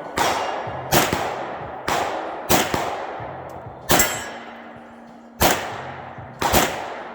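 Gunshots at a shooting range: about eight shots at an uneven pace, some in quick pairs, each followed by a long echoing tail.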